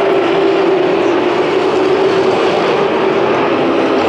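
A pack of short-track race trucks' engines running at speed around an asphalt oval, a loud, steady drone.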